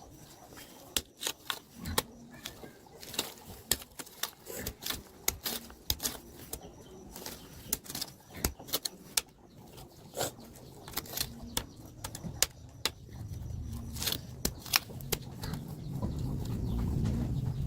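Irregular sharp clicks and snaps, several a second at times, with a low rumble building over the last few seconds.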